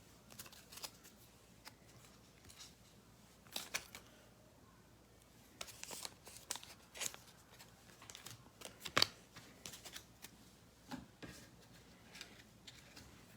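Trading cards being handled and slid into plastic sleeves: faint, scattered rustles and soft clicks, the sharpest a tap about nine seconds in.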